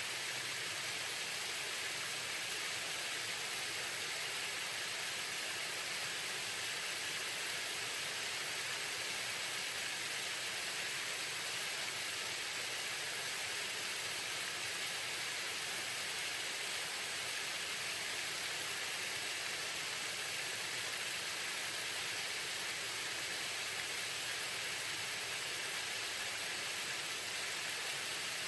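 Waterfall: falling water as a steady, even hiss with no breaks or changes.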